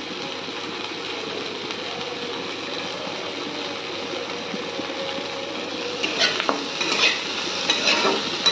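Chopped onions, tomatoes and whole spices sizzling in a kadai. From about six seconds in, a metal spatula scrapes and knocks against the pan as the mixture is stirred.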